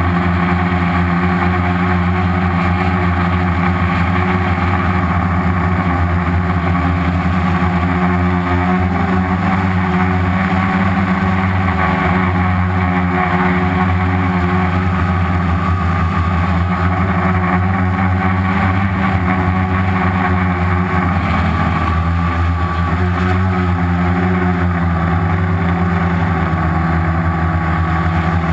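A homemade quadcopter's four Turnigy 2217 1050kv brushless outrunner motors spinning 10x4.5 slow-fly props: a loud, steady buzz heard close from the onboard camera. The pitch shifts slightly about two-thirds of the way in.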